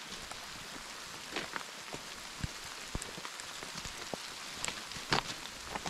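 Steady hiss of rain, with scattered sharp ticks and taps through it.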